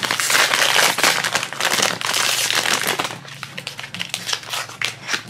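Foil blind bag crinkling and crackling as it is handled and pulled open by hand, dense for about the first three seconds, then softer, sparser crackles.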